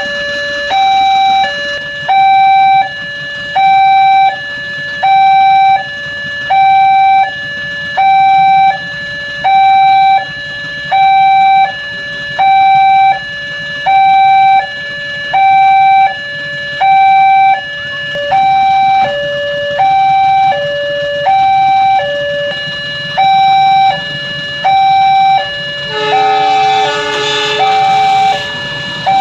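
Electronic warning alarm of an Indonesian railway level crossing, a loud two-tone high-low signal repeating steadily about once a second, warning that a train is approaching. About three seconds before the end, a train horn sounds over it.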